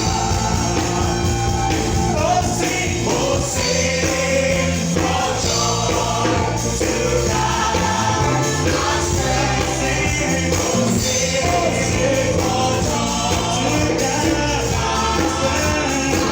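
Live gospel praise music: a band with a steady beat behind a group of singing voices.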